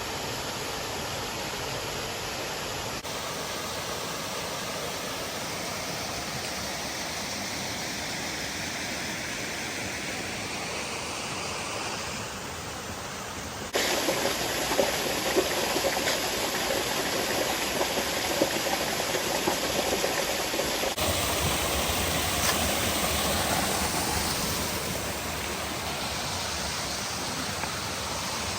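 Steady rush of a waterfall, heard in several cuts: the sound changes abruptly about three seconds in, turns louder and fuller about halfway through, changes again about two-thirds of the way through and eases near the end.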